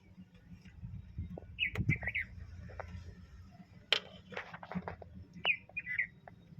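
Small birds chirping in short calls, twice in two clusters, with scattered sharp clicks and knocks, the loudest about four seconds in.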